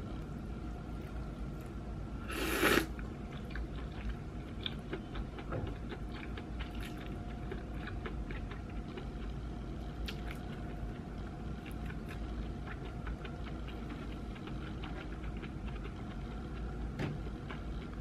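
A person slurping up cold naengmyeon noodles once, loudly, about two and a half seconds in, then chewing them with many small wet mouth clicks. The noodles are chewy and take effort to bite through.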